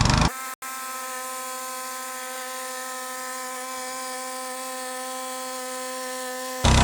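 A small engine running loudly cuts off abruptly a fraction of a second in, giving way to a steady hum at one unchanging pitch with overtones, like a small motor; the engine sound cuts back in abruptly near the end.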